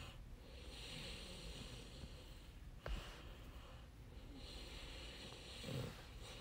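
Faint breathing close to a microphone: two long, slow breaths, with a single sharp click about three seconds in.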